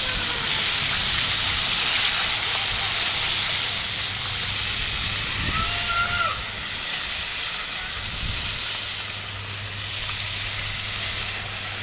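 Food frying in a pot: a steady hiss that does not let up, with a brief faint pitched call about six seconds in.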